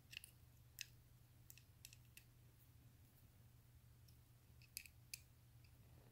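Faint small clicks of a hex key working the screws on an aluminium mounting plate, a few scattered ticks over a low steady hum.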